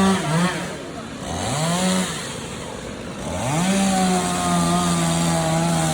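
Chainsaw revving: it runs at high speed, drops off to idle just after the start, revs up briefly and falls back, then revs up again near the middle and holds steady at full throttle.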